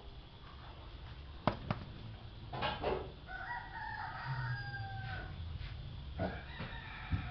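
A rooster crowing: one long, drawn-out call lasting almost two seconds, starting about three and a half seconds in and dipping slightly in pitch at the end. Before it come a couple of sharp clicks and a brief rustle.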